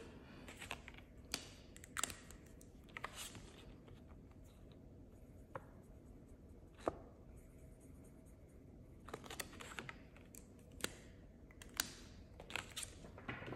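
Faint desk-top handling sounds: Australian polymer banknotes and a clear plastic binder pocket rustling, with scattered light clicks and taps, the sharpest about seven seconds in, and a marker pen being worked on a card. Short rustling flurries come late on.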